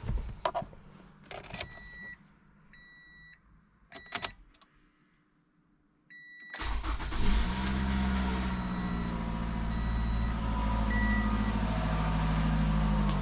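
A few knocks and short electronic dashboard chimes, then the 2015 Toyota RAV4's four-cylinder engine starts about six and a half seconds in and runs steadily at idle. The engine is loud right after starting, the first start after an oil change with an unfilled oil filter, which the owners put down to oil not yet reaching parts such as the variable valve timing.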